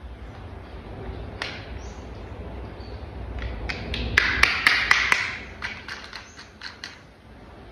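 Plastic toy vehicle parts being handled and clicked together: a run of sharp clicks and taps starting about halfway in, densest and mixed with a brief rustle about four to five seconds in.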